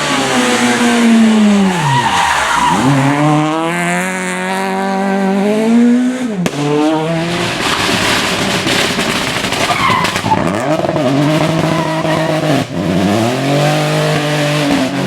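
Rally car engine at high revs, its pitch falling sharply off the throttle and climbing again under acceleration about four times, with tyre squeal.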